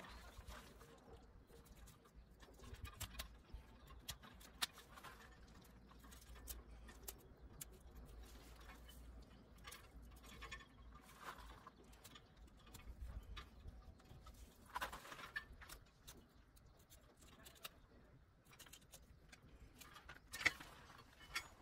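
Near silence with faint handling noise as a knife cuts meat off a carcass: soft scrapes and scattered clicks, the sharpest one near the end, over a low steady rumble that fades out about two-thirds of the way through.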